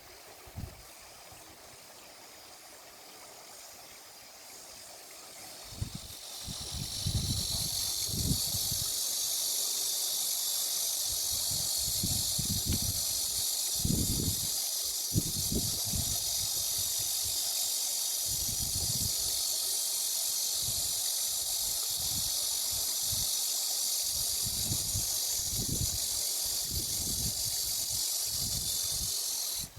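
A steady high-pitched hiss fades in about six seconds in and stops abruptly at the end, over irregular low rumbles of wind buffeting the microphone.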